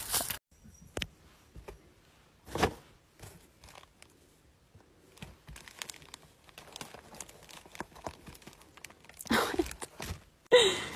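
Plastic wrapping on a pack of toilet paper rolls crinkling and rustling as the rolls are handled, in scattered soft bursts, with a louder rustle about two and a half seconds in.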